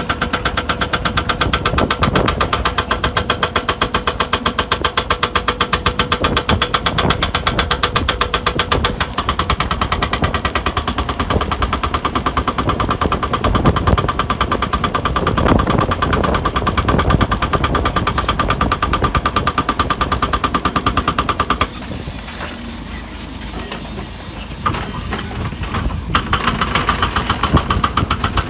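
Hydraulic rock breaker on a Hidromek 140 excavator hammering rock with a rapid, steady train of blows over the diesel engine. Near the end the hammering stops for about four seconds, leaving the engine running, then starts again.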